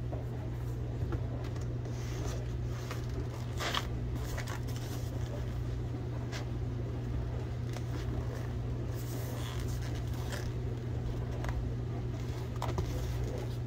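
Steady low background hum with a few faint clicks and rustles of handling.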